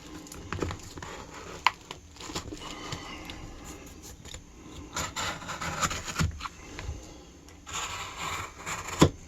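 A duct-taped cardboard package being worked open by hand: irregular scraping and rustling, with a few sharp knocks, the loudest near the start and near the end.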